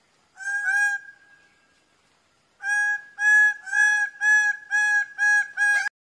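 Greater bird-of-paradise calling: two loud notes, then after a pause a run of about seven repeated call notes at roughly two a second, cutting off abruptly.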